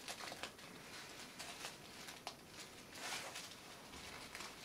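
Faint rustling and crackling of tissue pattern paper as it is lifted and torn off the fabric around thread tailor's tacks, with scattered small crisp ticks and a slightly fuller rustle about three seconds in.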